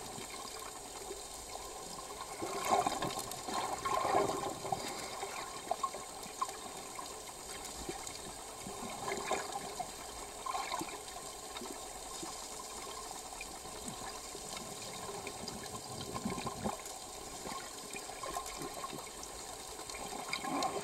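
Muffled water sloshing and bubbling, heard from below the surface. It swells louder around three to four seconds in, again around nine to eleven seconds, and just at the end.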